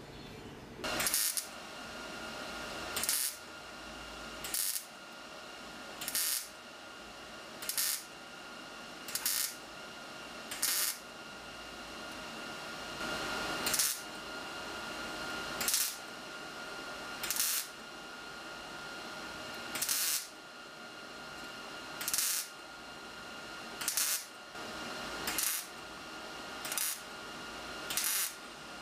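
Repeated short, harsh metal-working strokes on steel bumper brackets: about fifteen sharp bursts, one every one and a half to two seconds.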